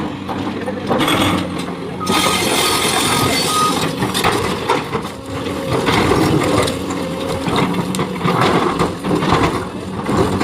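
Excavator working while loading rocks: its diesel engine runs steadily under load, with rattling and clattering of rock and machinery and a short run of high beeps a couple of seconds in.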